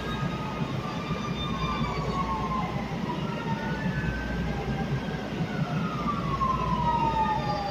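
Siren of an approaching fire truck (a ladder truck), wailing slowly up and down in pitch and growing louder toward the end, over a steady low rumble.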